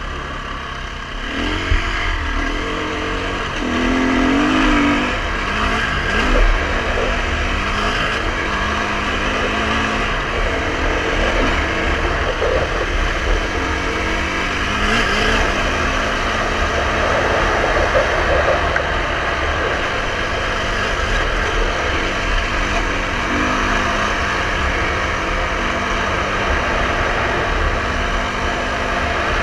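KTM 350 EXC-F dirt bike's single-cylinder four-stroke engine running under way on a dirt trail, the revs rising and falling as the throttle is worked.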